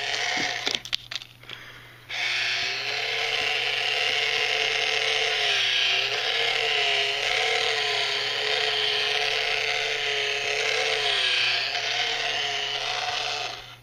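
The Face Bank novelty money box's small battery motor and plastic gears whirring as it chews the banknote it has just swallowed. It starts after a few clicks, then runs steadily for about eleven seconds, its pitch dipping and recovering in a slow repeating cycle, and cuts off suddenly near the end.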